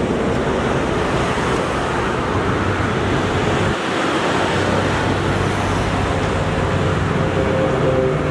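Steady, continuous roadside traffic noise.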